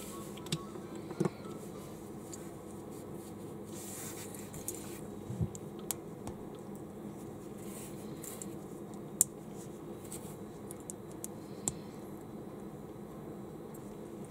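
Small plastic building-block pieces handled and pressed together by hand: scattered sharp clicks and taps of plastic on plastic, the loudest about nine seconds in, over a steady low hum.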